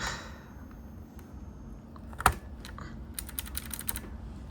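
Small hard clicks of mechanical keyboard parts being handled: one sharp click about two seconds in, then a quick run of about eight clicks near the end.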